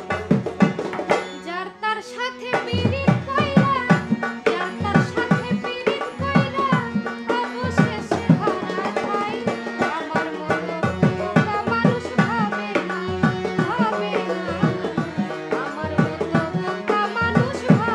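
Bengali baul folk music: a tabla keeps a quick, steady rhythm under a wavering melody line and held accompanying notes.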